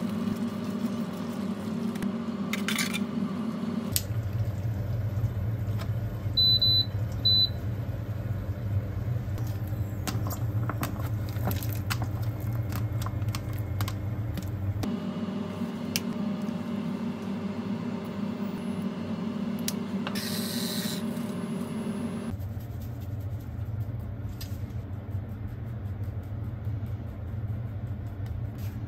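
Kitchen cooking sounds at an induction cooktop: a steady low hum under light clicks and scrapes of utensils and pans, with two short high electronic beeps close together a few seconds in.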